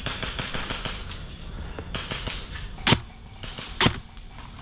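Two sharp airsoft gun shots about a second apart, over a run of quick faint clicks and rustling.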